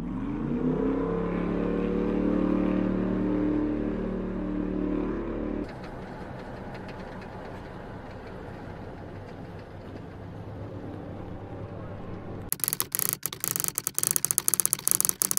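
A motor vehicle engine speeding up, its pitch rising and then holding steady, then a cut to a lower steady hum. Near the end come several seconds of loud, choppy, stuttering noise.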